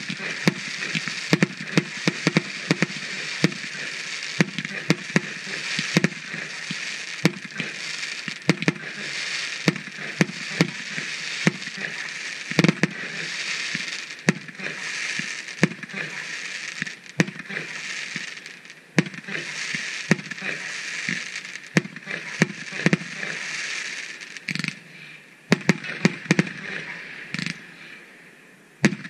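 Aerial fireworks display: shells bursting one after another with many sharp bangs over a steady crackling hiss of spark-trailing stars. The crackle dies down about 25 seconds in, and a few last bangs come near the end.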